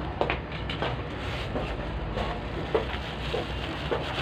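Thin plastic bag crinkling and rustling in short, irregular crackles as a bag of rice is handled and opened, over a steady low background rumble.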